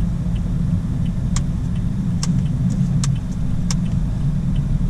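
Car being driven, heard from inside the cabin: a steady low rumble of engine and road noise, with a few faint, sharp ticks scattered through it.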